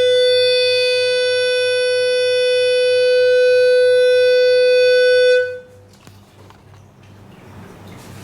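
Loud, steady test tone of about 500 Hz from a loudspeaker, buzzy with a long row of overtones, which cuts off suddenly about five and a half seconds in.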